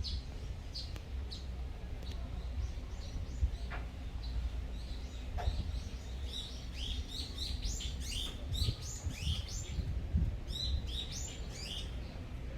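Small songbirds chirping: a few scattered chirps at first, then a quick run of short repeated chirps through the second half, over a steady low rumble.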